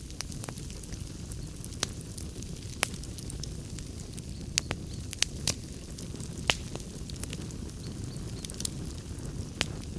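Wood fire burning in a fireplace: a steady low rumble of flame with irregular sharp crackles and pops, several louder pops in the middle.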